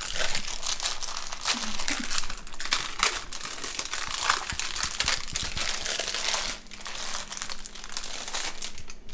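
Plastic wrapper crinkling as a rolled refrigerated pie crust is pulled out of it and handled, a busy crackle of many small sharp crinkles.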